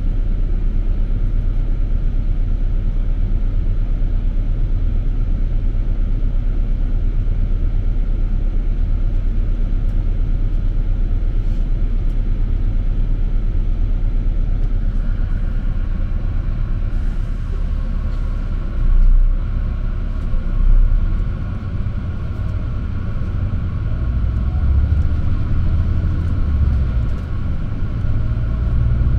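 City bus engine idling with a steady low rumble, heard from inside the passenger cabin. About halfway through, the bus pulls away, and the engine rises and swells with a rising whine as it gathers speed.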